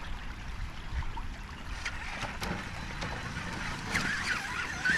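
Brushless Traxxas Summit RC truck driving through water, with splashing and a low rumble. Near the end a wavering high whine from its motor comes in.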